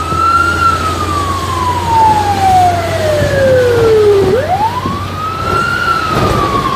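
Fire truck's siren wailing: each cycle rises quickly in pitch, then falls slowly over about three and a half seconds, with a new rise starting about four seconds in. Under it runs the low rumble of the moving truck, heard from inside its cab.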